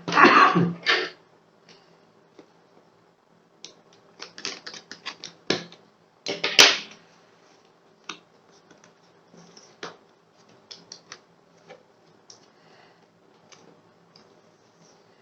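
Cardboard product box being opened and handled: rustling and scraping just after the start and again about four to seven seconds in, then scattered light clicks and taps.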